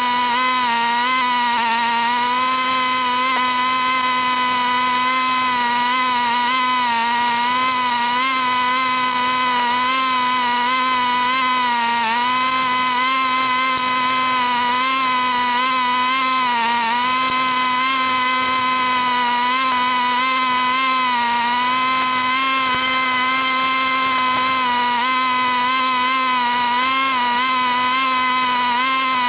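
Lawn mower running steadily, a continuous high-pitched motor whine whose pitch wavers slightly as it moves over the grass.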